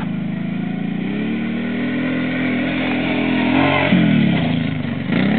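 Quad (ATV) engine revving hard under throttle. Its pitch climbs, dips sharply about four seconds in and again near the end, then climbs again.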